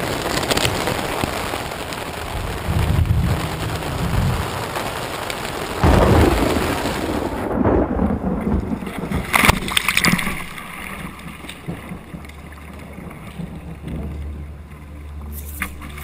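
Heavy rain beating on a tent with rolls of thunder, the loudest about six seconds in. Then, after a sudden cut, a sea kayak's bow slapping through choppy water with a few splashes.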